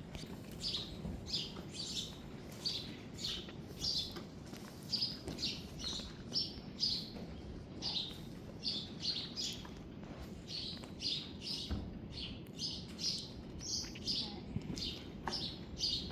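Soft grooming brush swept in quick strokes over a horse's coat, giving short swishes about two a second.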